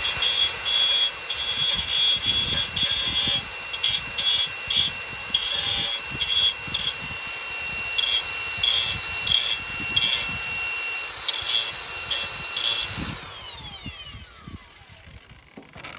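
Handheld high-speed power tool running with a steady high whine, the tone dipping and breaking again and again as it is pressed into the work to take the pointer's size down. It winds down and stops about thirteen seconds in.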